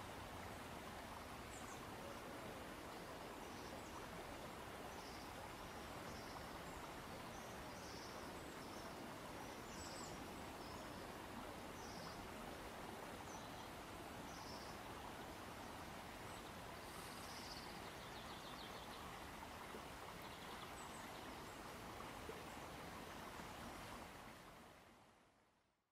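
Faint outdoor ambience: a steady even background hiss with small high bird chirps scattered every couple of seconds. It fades out over the last two seconds.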